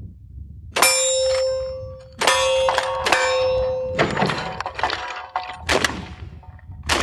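Three shots from a Winchester 1873 lever-action rifle in .38 Special, each followed by the ringing clang of a struck steel popper target. Several sharp reports come near the end, fitting 12-gauge shotgun shots at thrown clays.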